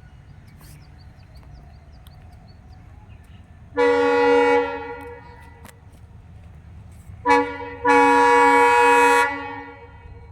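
Train horn sounding: a blast of about a second, then a short toot and a longer blast of about a second and a half, over a low steady rumble.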